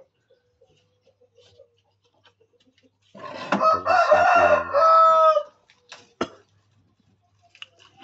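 A rooster crows once: a single long call of about two and a half seconds, starting about three seconds in and ending on a held note. Two sharp knocks follow about a second later.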